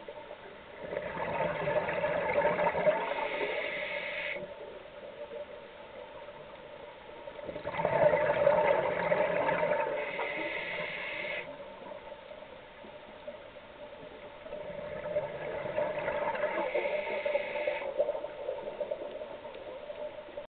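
A scuba diver breathing through a regulator underwater: three breaths about seven seconds apart, each a loud rush of bubbles, with quieter gaps between.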